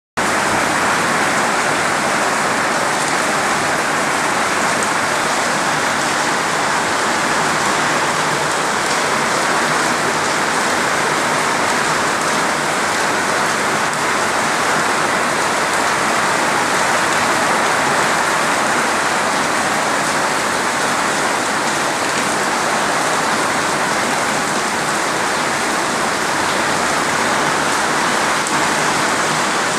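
Heavy, steady rain falling and pattering on surfaces, an even rushing hiss with no letup.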